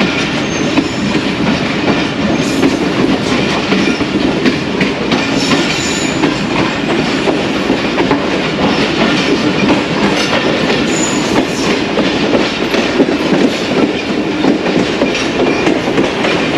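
Passenger train coach running at speed, its wheels clattering steadily over the track.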